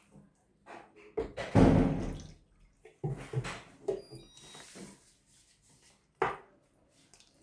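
Water being poured into a bowl of semolina and rice-flour mix, which is then beaten into a batter. The splashing and stirring come in uneven bursts, the loudest about a second and a half in, with a sharp knock against the bowl near the end.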